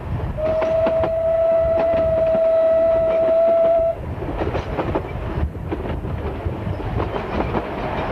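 Steam whistle of Isle of Man Railway narrow-gauge tank locomotive No. 11 'Maitland' blown once, a single steady note lasting about three and a half seconds from about half a second in. Under and after it, the rumble and rhythmic clickety-clack of the carriages' wheels on the rail joints.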